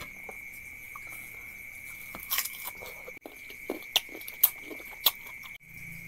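Crisp biting and chewing of slices of unripe green mango, with a few sharp crunches as the teeth go through the firm flesh. A steady high whine sounds behind it.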